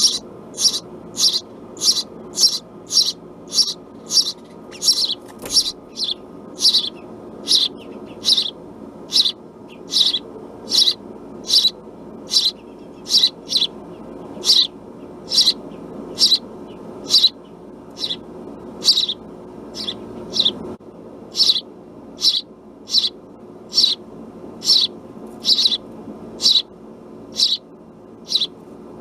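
House sparrow giving a long run of short, sharp single chirps, about two a second, over a steady low background hum.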